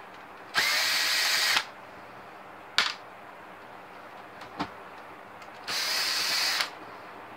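Cordless electric screwdriver whirring in two short runs of about a second each, with a sharp click between them, as screws come out of an LCD projector's case. Heavy rain hisses steadily in the background.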